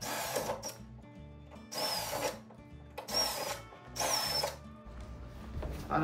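Cordless drill boring into the metal door frame with a larger bit, enlarging pilot holes, in four short bursts, each with a high, falling squeal.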